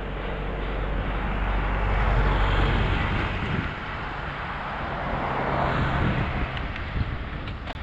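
Wind and road rush on a GoPro while riding a road bike, with a motor vehicle's engine hum underneath. The noise swells about two seconds in and again around six seconds, the hum fades near the end, and a sharp click comes just before the end.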